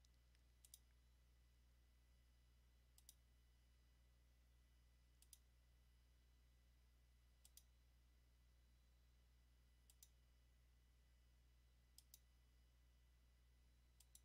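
Faint computer mouse clicks, one about every two seconds, some heard as a quick double tick, over a low steady hum.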